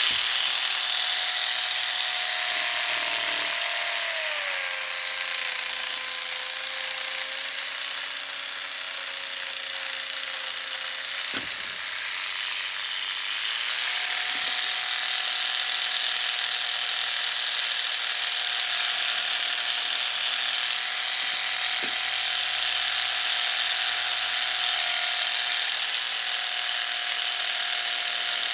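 Craftsman rotary tool running a Dremel jigsaw attachment, which drives a coarse round rasp back and forth with a steady high whine and a rasping hiss. The pitch drops about four seconds in and comes back up about halfway through.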